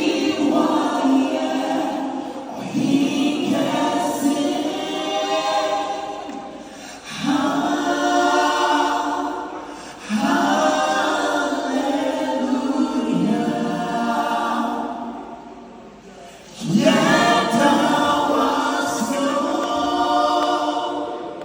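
Group of voices singing a gospel song together in harmony, in phrases a few seconds long with short breaks between them.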